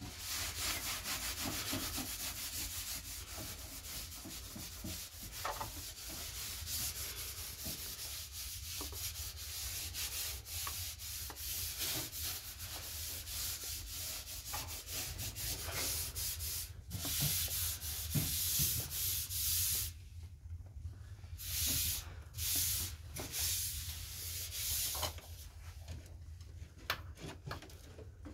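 Hand scrubbing of a white gas stovetop: rapid back-and-forth rubbing strokes, steady at first. The loudest scrubbing comes in the last third, where the strokes break into separate spurts with short pauses between them.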